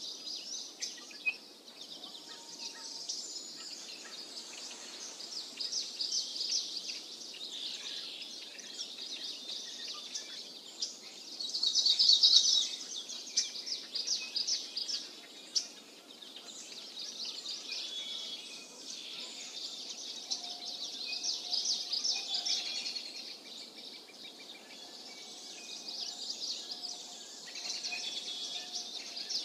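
Small birds chirping and twittering, high-pitched, rapid and continuous, with a louder burst about twelve seconds in.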